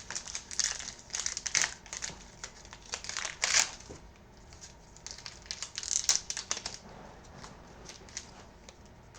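Plastic trading-card pack wrapper crinkling and being torn open, in irregular crackly bursts that come in two clusters and then die away.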